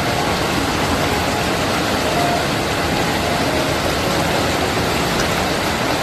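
Mountain stream rushing over boulders and small rapids: a loud, steady rush of white water.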